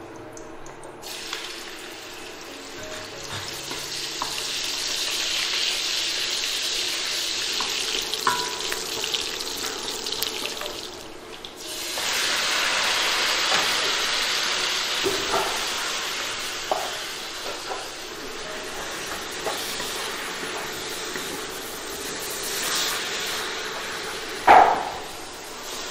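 Chopped leafy greens sizzling in hot lard in a stainless steel wok, stirred with a wooden spatula. The sizzle grows louder once the greens go in, and a sharp knock of the spatula against the pan comes near the end.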